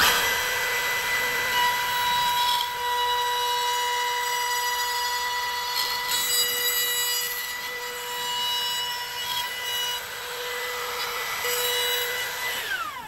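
Makita trim router switched on and running at a steady high whine as its bearing-guided bit trims the edges of a pickup hole in an archtop guitar's spruce top. Near the end it is switched off and the whine falls quickly in pitch as the motor spins down.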